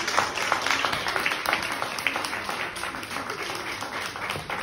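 Audience applause: many hands clapping at once, slowly dying away.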